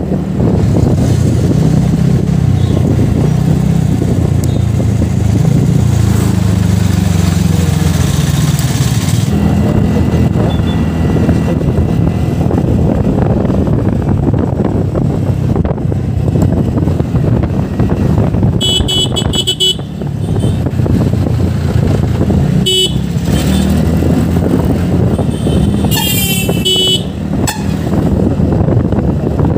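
Wind and road rumble of a TVS NTorq 125 scooter riding along a road, steady throughout. Vehicle horns beep a few times in the last third: a couple of short beeps, then a longer burst of honking near the end.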